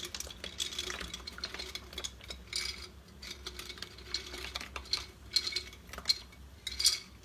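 Dry calamari pasta being stirred in a pot of salted water: a utensil scraping and clinking against the pot, with many short irregular clicks.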